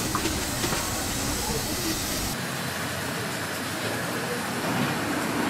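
A steady hiss of market background that cuts abruptly, about two seconds in, to a large aluminium pot of broth at a hard boil: a steady bubbling hiss.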